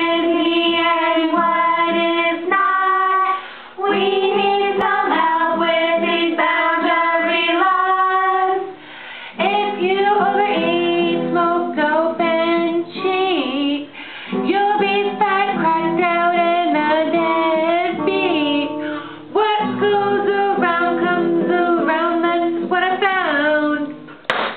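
Women singing a song to a strummed acoustic guitar, in phrases with short breaks between them.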